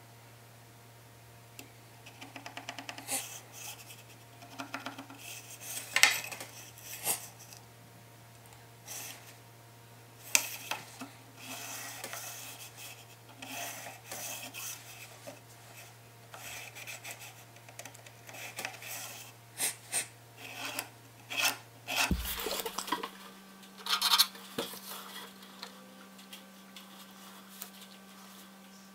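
Steel rule being slid and set down on a plywood board, with a pen scratching along its edge as lines are marked out: irregular short scrapes, rubs and light metallic clinks.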